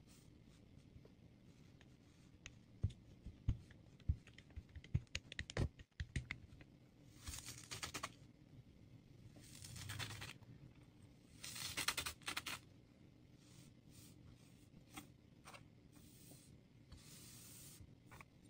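Kinetic sand being cut and squished. A quick run of soft taps and clicks comes a few seconds in, then three longer grainy bursts a couple of seconds apart, with faint ticks after.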